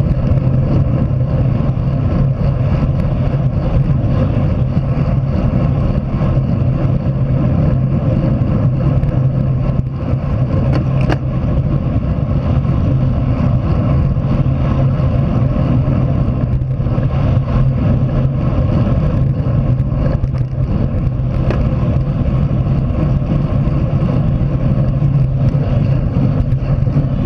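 Steady, loud wind rumble on a bike-mounted action camera's microphone while riding at race speed, with road noise under it.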